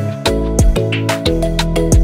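Background music: held instrumental notes over a steady beat with deep drum hits that drop in pitch.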